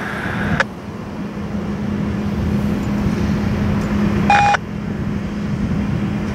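A train runs with a steady low drone and a held hum, and a short high beep sounds about four seconds in.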